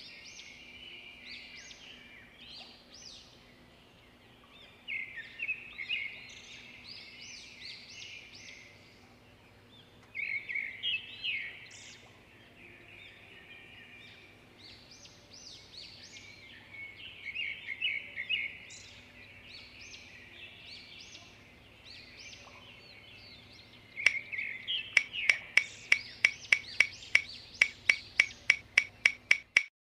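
Birds chirping and singing in short scattered calls. About 24 seconds in, a fast, regular clicking starts, about four sharp ticks a second, and carries on.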